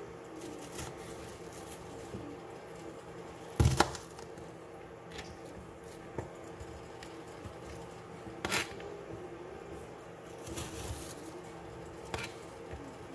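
A few sharp knocks and clatters of kitchen handling over a faint steady hum, the loudest knock about four seconds in.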